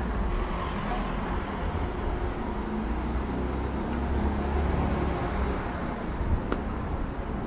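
City street ambience with the low rumble of passing road traffic, swelling and easing, and a single short click about six and a half seconds in.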